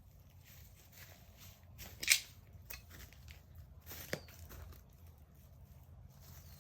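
A modified paintball launcher firing once about two seconds in: a short, sharp release of air, with a smaller sharp knock about two seconds later and scattered light clicks.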